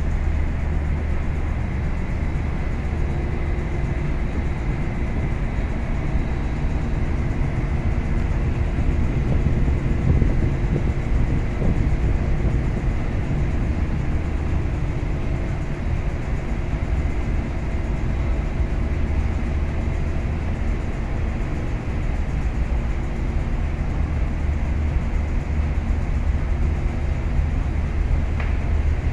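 Steady low drone of a container ship's engine-room machinery, with a faint high steady tone running above it.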